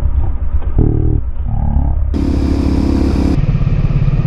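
Supermoto motorcycle engines running on the road, with a couple of short revs rising in pitch about a second in. The engine sound changes abruptly twice.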